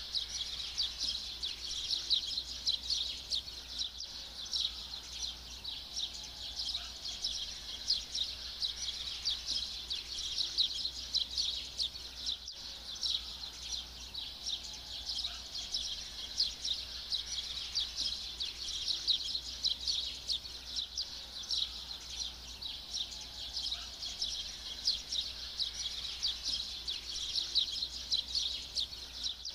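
Steady outdoor nature ambience: a dense, unbroken chorus of high, rapid chirps, with a few faint lower bird whistles now and then.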